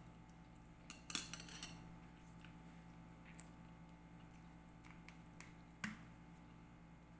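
Metal chopsticks clinking and rattling against a ceramic noodle bowl as they are set down, a quick cluster of clinks about a second in. Just before the end a single sharp click comes from the cap of a squeeze bottle of hot sauce being opened.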